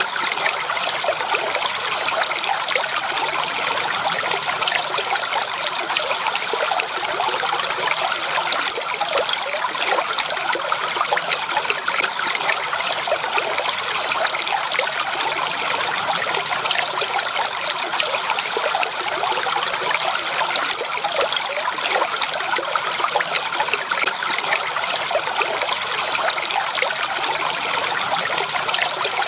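Water flowing and trickling steadily over stones, a stream's continuous babble with a fine, bubbly texture.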